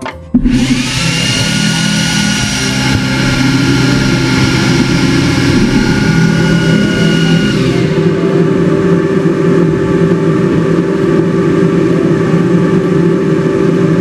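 Xtool S1 40W laser engraver starting up and running a test cut: a sudden, loud, steady machine whir about half a second in, with a whine that rises briefly as it spins up and then holds. About eight seconds in the higher whine drops away, and a lower steady hum carries on.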